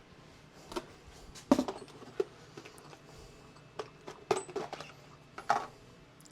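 A scattered series of short, light knocks and clinks, about seven in all, the loudest about one and a half seconds in, as metal tools or parts are handled on a workbench.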